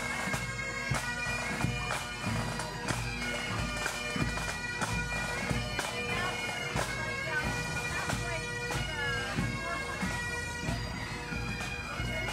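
Great Highland bagpipes playing a tune over their steady drone, with a regular drumbeat.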